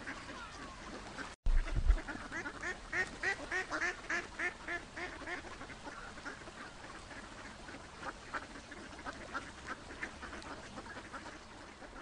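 A flock of mallard ducks quacking, with a quick run of repeated quacks about three seconds in and scattered quacks after. About a second and a half in the sound drops out for an instant and there is a low thump.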